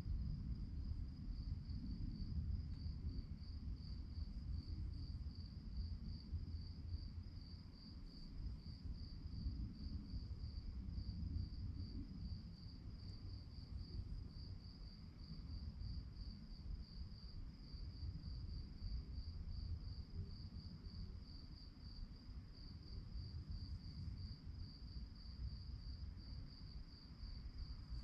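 Crickets chirping at night in a steady, fast train of short high-pitched pulses, with a low rumble underneath.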